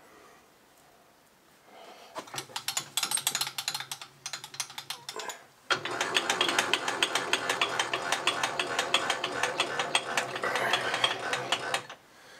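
Small milling machine's head rising on its column with a rapid mechanical gear clicking over a steady low hum. It starts in short irregular spurts and runs continuously from about six seconds in.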